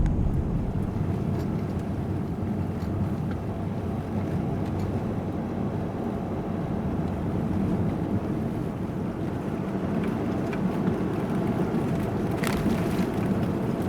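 Steady low rumble of a car driving along the road, engine and tyre noise with some wind noise.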